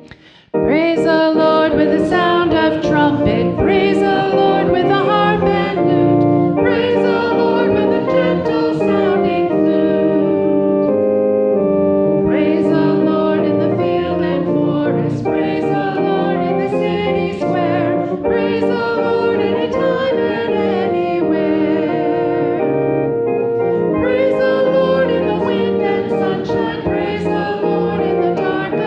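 A church congregation singing a hymn together with keyboard accompaniment, the singing starting about half a second in after a brief pause and going on in phrases.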